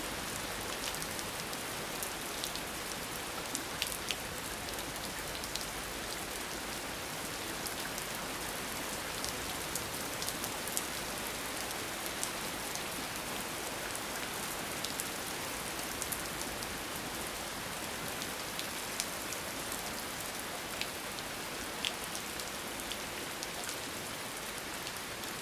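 Steady rain falling, a dense hiss with scattered sharp drop hits on a hard surface.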